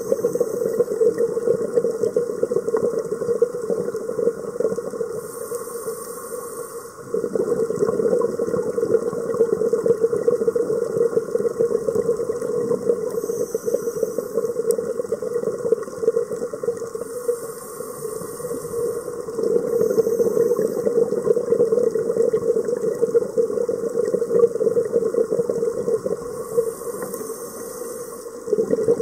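Underwater recording of a scuba diver breathing through a regulator: a continuous bubbling and rushing, with a short hiss of inhalation every several seconds, each followed by the louder bubbling of an exhalation.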